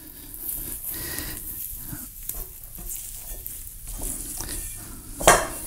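Hands squeezing and working soft, sticky, buttery bread dough in a bowl: an irregular wet squishing. A louder brief sound comes just over five seconds in.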